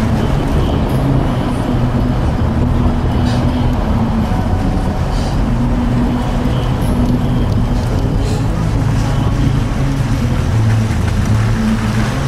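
Steady engine drone and road noise of a moving vehicle, heard from inside it.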